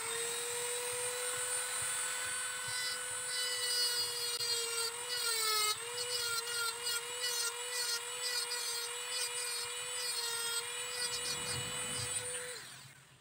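Handheld mini rotary tool running at high speed, a steady high whine whose pitch dips slightly as the bit bears on a small metal piece, then switched off near the end.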